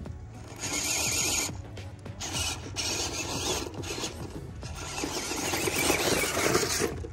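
Radio-controlled scale Toyota Land Cruiser LC80 crawler: its electric motor and gearbox whir in stop-and-start throttle bursts while the tyres grind and scrape over dry clods of soil.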